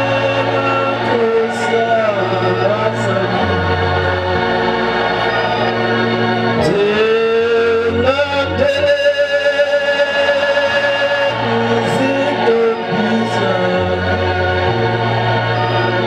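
Hymn singing over sustained electronic organ chords, with a bass line that steps to a new note every couple of seconds and a voice sliding between pitches.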